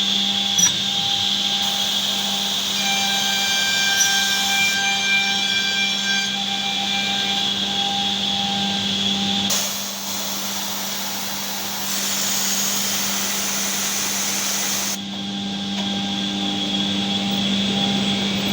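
KDT Edgetech edge banding machine with pre-milling and grooving units running with a steady machine hum. For a few seconds from about halfway, a harsher hiss joins it.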